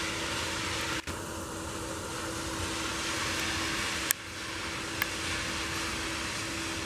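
Railroad ballast sweeper, a rail-mounted maintenance-of-way machine, running as it travels along the track: a steady, noisy drone with a constant low hum. Two short sharp clicks come about four and five seconds in.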